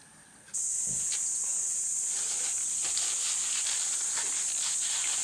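A steady, high-pitched chorus of insects, such as cicadas, comes in suddenly about half a second in and stays loud until it drops back near the end. Faint irregular clicks of chewing sound underneath.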